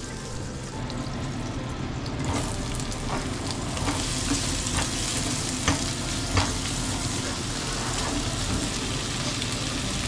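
Chopped onion sizzling as it fries in a non-stick frying pan, the sizzle picking up about two seconds in. A spatula stirring it scrapes and taps against the pan several times, the two loudest taps in the middle.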